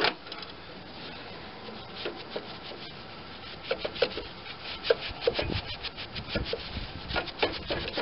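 Cloth rag rubbed hard back and forth over the rusty metal of a snowblower's friction-wheel drive, scrubbing off loose rust. A run of quick, irregular scratchy strokes starts about two seconds in.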